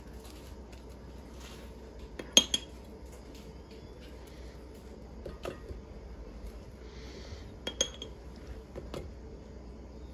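Metal spoon clinking against ceramic dishes and scraping as mayonnaise is spread on a split French bread loaf: a handful of sharp clinks, the loudest about two and a half seconds in, with soft scraping between them.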